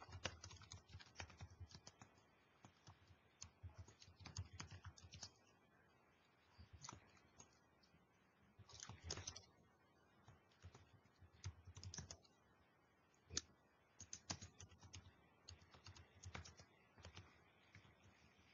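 Faint computer keyboard typing: irregular runs of short key clicks with brief pauses between them.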